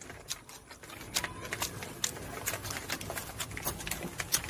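Rice paper crackling and rustling in short irregular clicks as it is rolled by hand around fresh herbs into a spring roll.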